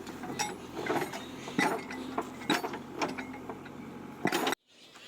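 Engine running steadily under irregular sharp metallic clanks and knocks, about one or two a second. Everything cuts off abruptly about four and a half seconds in.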